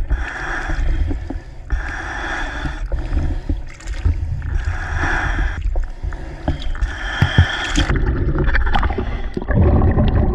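River water sloshing and splashing against an action camera held at the surface as a diver moves out through the current, coming in surges every second or so. Near the end the sound turns dull and muffled as the camera goes under the water.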